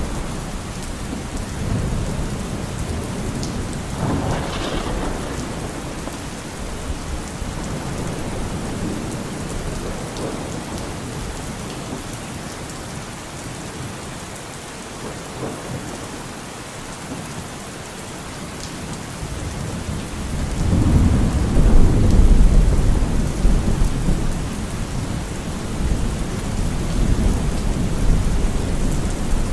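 Steady rain falling in a thunderstorm, with rolling thunder: a deep rumble swells up about two-thirds of the way through and carries on to the end.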